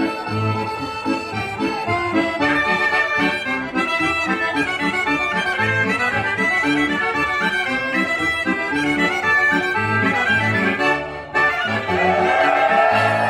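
Accordion playing lively traditional dance music, with a brief dip about eleven seconds in before the tune carries on.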